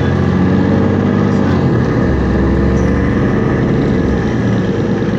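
MAN NL223 city bus's diesel engine and Voith DIWA automatic gearbox running under way, heard from inside the passenger cabin. The engine note shifts in pitch about two seconds in.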